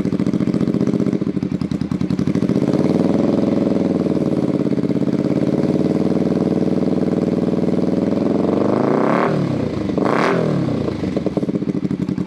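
Kawasaki EN400 Vulcan 400 parallel-twin engine running through Harley-Davidson Screaming Eagle silencers, idling with a steady, pulsing exhaust note. The revs rise gently a few seconds in, then two quick throttle blips about nine and ten seconds in, each dropping straight back to idle.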